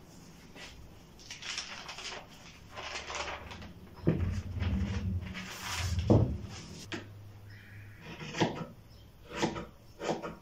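Paper pattern rustling as it is lifted off the fabric, and block pattern weights set down on the cutting table with two knocks. Near the end come a few short snips of fabric shears starting to cut the cloth.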